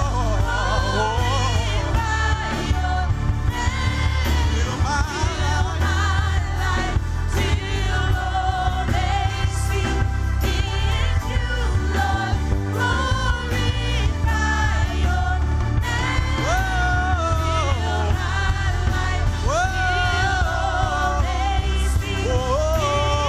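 A gospel praise team singing a worship song with a full band and a strong bass line, the lead voice sliding through long held notes.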